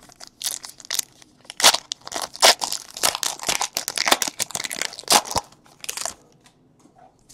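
Trading card pack wrapper being torn open and crinkled by hand: a dense run of crackling and rustling that stops about six seconds in.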